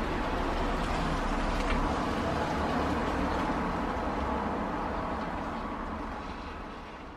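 Steady outdoor rushing noise, like distant traffic or wind on the microphone, fading away over the last couple of seconds.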